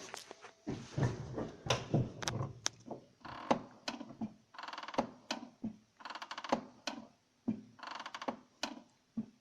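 VAZ-2112 clutch squeaking as the pedal is pressed and released over and over. There are about four squeaks, roughly a second and a half apart, with clicks and knocks between them. The squeak comes from the clutch release fork rubbing on the worn stock clutch-cable end fitting.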